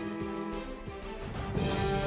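Background music of sustained, held notes, growing louder near the end.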